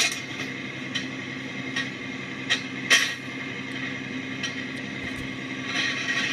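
Construction-site sound: a machine running with a steady hum, with a few sharp metallic knocks and clinks, the loudest about three seconds in.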